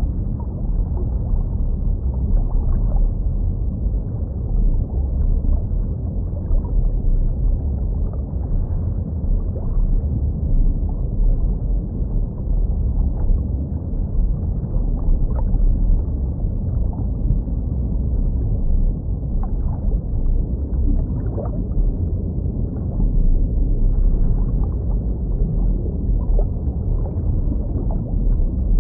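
Muffled underwater ambience: a steady low rumble of water with scattered faint bubbling pops.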